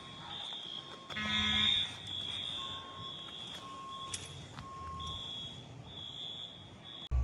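Smoke alarms set off one after another by a technician testing them: a high-pitched alarm tone that sounds and stops again and again, with one louder buzzing blast about a second in and a few fainter, lower beeps in the middle.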